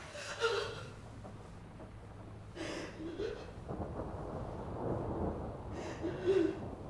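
A woman crying: gasping, sobbing breaths with short broken whimpers in three bursts, over a low steady hum.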